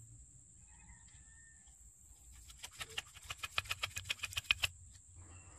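Wooden ramrod tamping the load down the barrel of a homemade muzzle-loading blackpowder pistol. It makes a quick run of about fourteen sharp taps, about seven a second, that grow louder.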